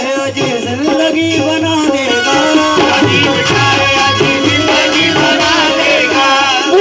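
Qawwali singing: male voices holding long, bending sung lines over harmonium and a hand-drum beat.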